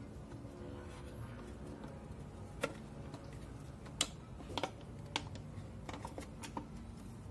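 Several sharp clicks and taps of a plastic motorcycle coolant reservoir being handled and pushed back into its mounting, irregularly spaced and starting a little over two seconds in.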